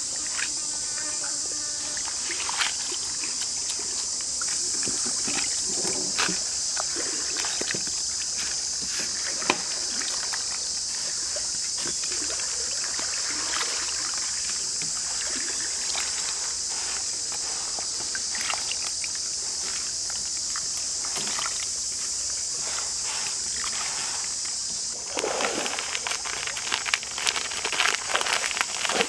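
Water sloshing and trickling as hands wash and squeeze crickets in a wok, with scattered splashes and clicks, over a steady high buzz of insects. About 25 seconds in the sound turns to a louder, uneven rattle.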